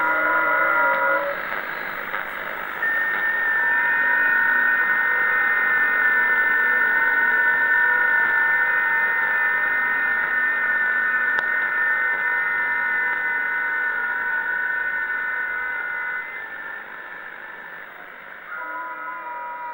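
Unexplained radio signal heard through a receiver: a chord of several steady whistling tones held over a hiss. The tones shift to a new set about three seconds in, fade and partly drop out a few seconds before the end, and give way to another set near the end.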